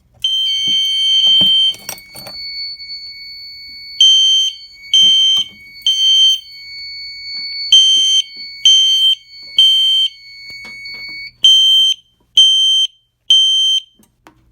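Fire alarm system in alarm, set off from a pull station: a horn sounds, then beeps in the temporal-three evacuation pattern, three beeps and a pause, repeated. Under it another device holds a steady tone that cuts off about eleven seconds in.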